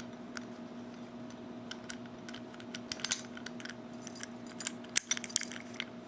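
Small metal clicks and taps of a heavy Medeco padlock's parts being handled and fitted back together by hand, with a faint steady hum behind them.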